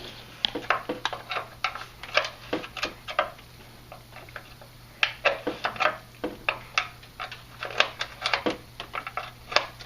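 Irregular metallic clicks and clinks of wrenches working the brake line's flare nut at the caliper, several a second, with a short lull a little past the middle.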